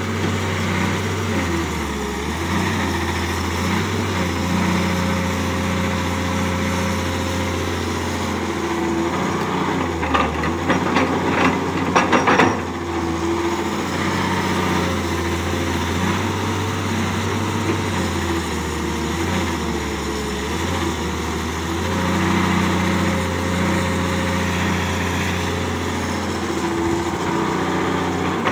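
Diesel engine of a Caterpillar crawler excavator running, its note rising and falling in level as the hydraulics are worked. About ten seconds in there is a brief run of sharp metallic clanks and knocks.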